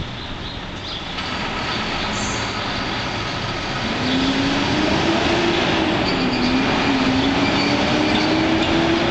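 Diesel engine of a tractor-trailer pulling through an intersection over street traffic noise. It grows louder as it nears, and its pitch rises, dips about halfway through, then climbs again.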